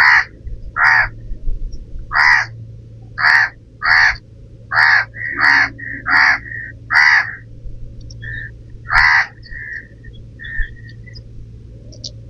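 An animal giving harsh, loud calls about once a second, ten or so in a row, thinning to shorter notes near the end.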